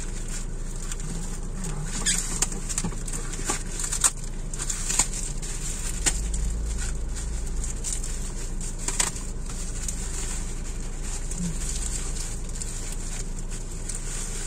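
Black plastic parcel wrapping and clear tape crinkling and tearing as a package is pulled open by hand, with irregular sharp crackles. A low steady hum runs underneath.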